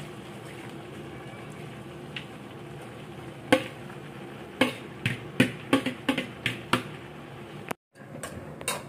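A spatula knocks against the pan as cabbage and Chinese pechay are stirred into a saucy pork-and-vegetable dish. A steady low background comes first, then sharp knocks about two a second from a few seconds in.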